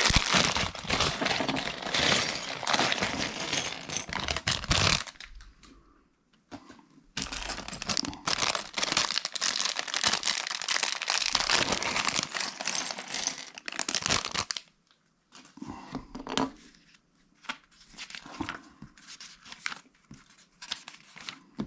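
Plastic LEGO parts bags being torn open and crinkled in two long spells with a short pause between, then lighter rustling and small clicks near the end.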